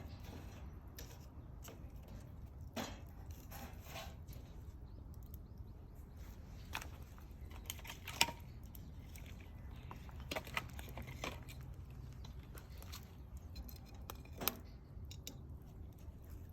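Wood bonfire crackling, with scattered sharp pops, the loudest about eight seconds in and another near the end, over a low steady rumble.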